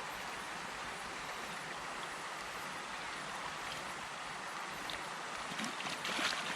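Steady rush of running water, with a few sharp knocks or splashes near the end.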